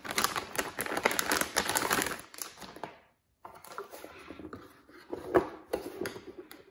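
Metallised anti-static bag crinkling loudly as it is handled around a motherboard. After a brief dropout about three seconds in, softer rustling and a few light knocks from cardboard boxes being moved on a stone counter.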